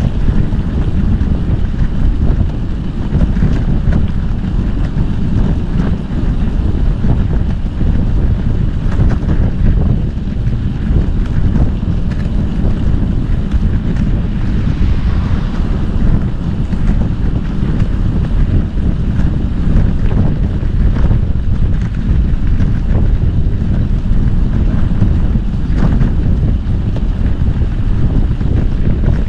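Wind buffeting the microphone of a moving bicycle, a loud, steady rumble.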